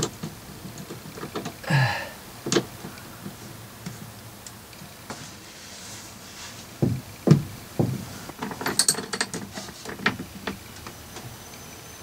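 Scattered knocks and clicks from hands working heavy battery cables and their terminal connections, with three dull thumps about seven seconds in and then a quick run of small metallic clinks.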